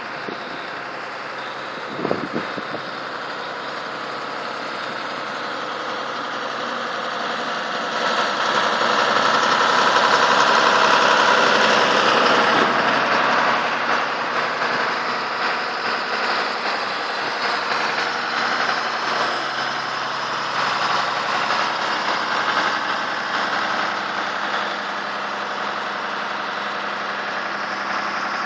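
Cat 315CL excavator's diesel engine idling steadily, growing louder for a few seconds through the middle, when heard close to the engine compartment, then settling. A single short knock about two seconds in.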